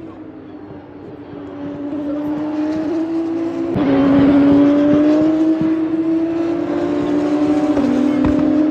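Several open-wheel racing cars run through a corner one after another, their engines climbing steadily in pitch as they accelerate. The sound jumps suddenly in pitch and loudness about four seconds in, and again near the end, as further cars come past.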